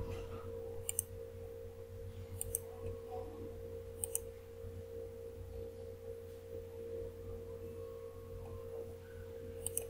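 A steady, faint background tone with a low hum beneath it. A few sharp computer-mouse clicks come about one, two and a half, and four seconds in.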